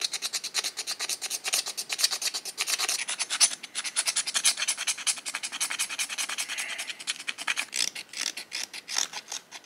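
Stone burin scraping a groove into bone in quick, repeated strokes, several a second: the stroke-by-stroke grooving that cuts a needle blank out through the bone.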